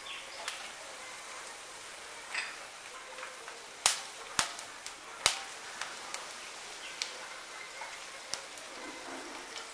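Hot mustard oil sizzling low around a tempering of bay leaves, dried red chillies and panch phoron, with sharp pops from the spices every so often, the loudest a few just before and after the middle.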